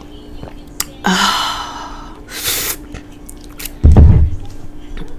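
A voiced 'ahh' gasp after a gulp of red wine, then a short breathy exhale. Just before the end a heavy thump, the loudest sound, as the glass jar is set down on the table.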